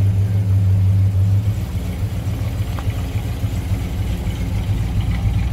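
1966 Dodge Dart station wagon's 273 V8 running with a steady low hum, then changing about a second and a half in to a lower, pulsing rumble as the wagon pulls away.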